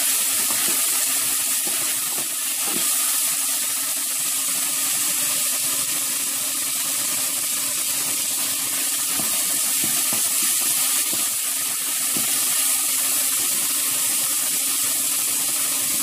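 Ginger-garlic paste with a little water frying in oil in a pan: a steady sizzle with a few faint knocks.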